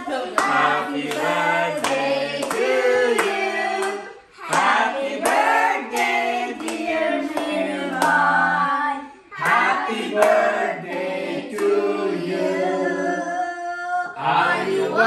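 A small group of women and children singing together with steady hand-clapping in time, pausing briefly twice between phrases.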